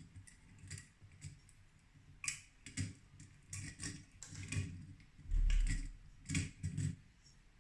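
Small 3D-printed plastic parts of a pen-holder mechanism being handled and fitted together: irregular light clicks and taps, with one duller, louder bump about five and a half seconds in.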